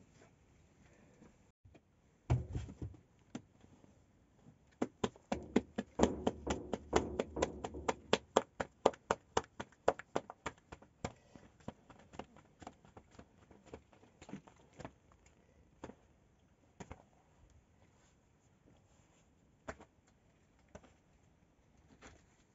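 Flatbread dough slapped and flipped between the hands to stretch it thin: a low thump a couple of seconds in, then a fast run of sharp pats for about five seconds, thinning out to scattered single slaps.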